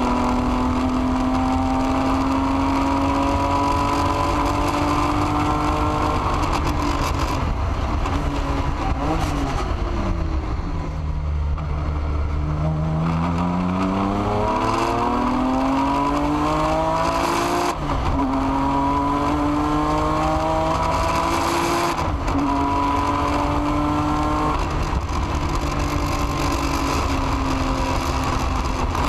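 BMW M3 GTR race car engine heard from inside the cockpit at racing speed. The engine note climbs, falls away midway as the car slows for a corner, then rises hard through the gears, with several quick upshifts that each drop the pitch before it climbs again.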